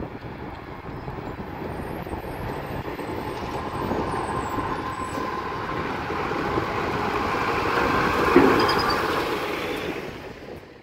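A 2018 Autocar ACX front-loading garbage truck with a Heil Half/Pack body drives up and passes close by. Its engine grows steadily louder as it approaches, with a brief louder burst about eight seconds in, and the sound fades out quickly at the end.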